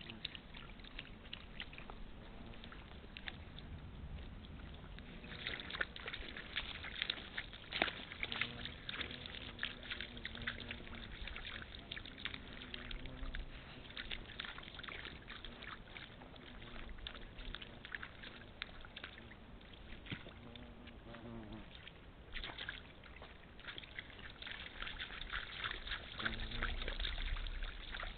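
Red deer hinds and calves drinking and wading in a shallow muddy puddle: irregular lapping, slurping and small splashes, with hooves squelching in the mud. The crackly splashing comes and goes, busiest a few seconds in and again near the end.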